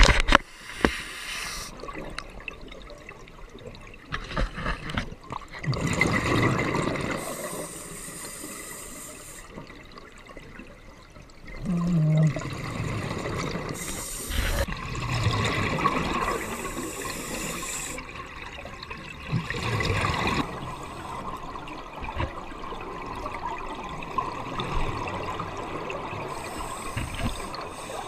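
Scuba diver breathing underwater through a regulator, heard through the camera housing: bursts of exhaust bubbles come every few seconds, with rushing water noise in between.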